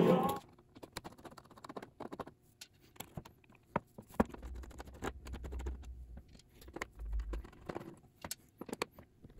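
Rock music cuts off in the first half-second. Then a small screwdriver works the screws out of a cassette recorder's case: scattered light clicks and ticks of the bit on the screw heads and of handling, with a faint low rumble midway.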